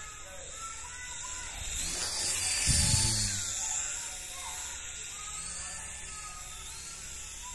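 Toy remote-control helicopter's small electric motor and rotors buzzing in flight, with background music. A louder low rumble swells and peaks about three seconds in.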